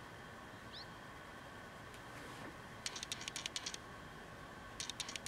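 Faint quick ticking and scratching in two short runs, about three seconds in and again near the end, from a makeup brush being worked while bronzer is applied.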